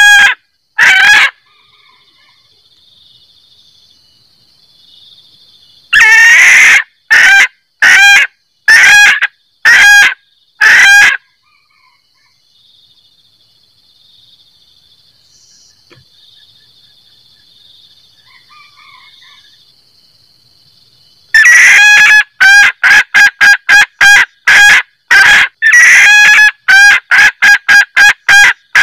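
Female junglefowl cackling 'kek' calls, the call a hen gives to draw in a male. The calls are loud and clipped. One comes about a second in, then a run of about six at roughly one a second, then after a long pause a fast string of two to three calls a second near the end. A faint, steady high buzz is heard in the pauses.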